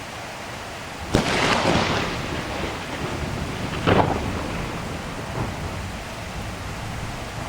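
Thunderstorm with steady rain: a sharp thunderclap about a second in rumbles on for about a second, followed by a second crack about four seconds in and a fainter one later.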